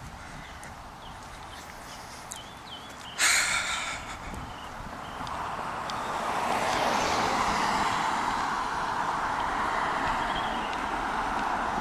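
A car driving past on the road, its tyre and road noise building from about halfway through and staying loud to the end. Before that, a few faint bird chirps and a short loud hiss about three seconds in.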